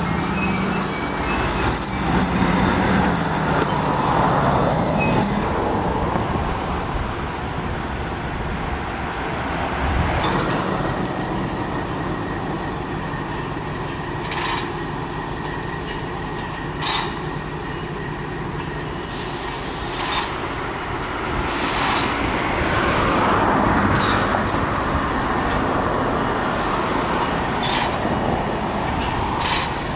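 Freight train led by a Norfolk Southern diesel locomotive, its engine running under a steady rumble. A high wheel squeal lasts the first five seconds or so, and a few sharp metallic clanks come in the second half.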